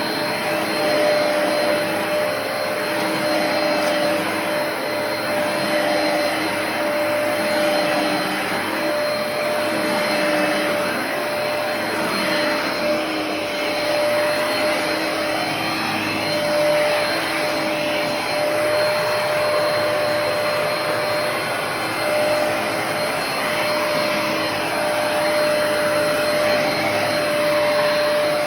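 Hoover PowerDash Pet compact carpet cleaner running steadily: a constant motor whine over the rush of suction.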